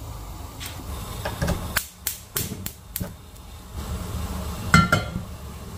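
Sharp metallic knocks and clicks at a gas stove: several in the first three seconds, then a louder clink with a short ring near the end. A low steady rumble from the lit gas burner runs underneath.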